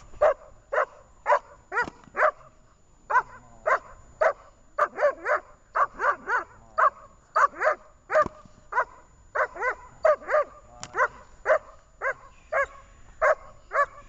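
German Shepherd barking repeatedly and forcefully, about two short barks a second and sometimes in quick pairs, while worked up on the leash in bite-work training.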